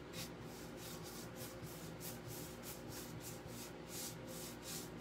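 Paintbrush stroking chalk paint across a dresser: faint, even brush strokes, about three or four a second.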